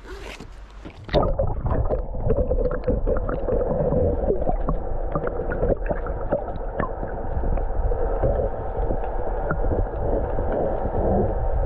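Sea water heard through a submerged microphone, starting suddenly about a second in: a muffled, steady low rumble with gurgling and many scattered clicks.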